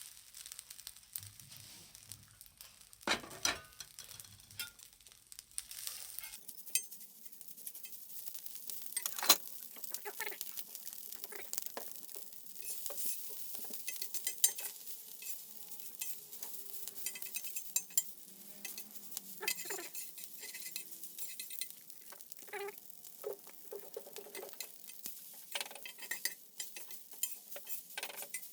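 Rice and minced garlic frying on a thick iron griddle with a steady sizzle, while a spatula scrapes, taps and clinks against the iron plate as the rice is stirred, in irregular strokes. The sizzle grows denser about six seconds in.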